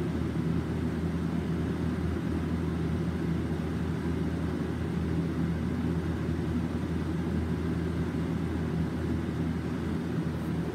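Steady low machine hum with a constant rumble, unchanging throughout, like a running fan or air conditioner in a room.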